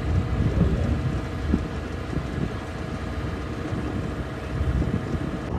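Motor cruiser's engine running steadily at low cruising speed, a low hum with a row of faint steady tones above it, with wind buffeting the microphone in irregular low thumps.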